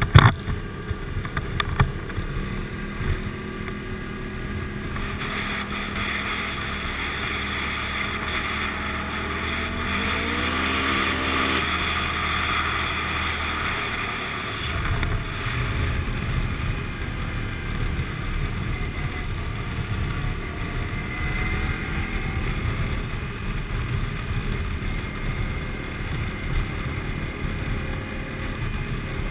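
Motorcycle engine running at road speed, with wind rushing over the action camera's microphone. There are a few knocks near the start, and a rising engine note about ten seconds in.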